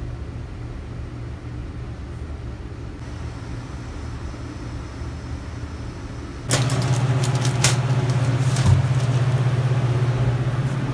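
A steady low hum. About six and a half seconds in it becomes louder as a refrigerator is opened and its fan hum comes through, with a few knocks and rattles of things being handled on the wire shelves.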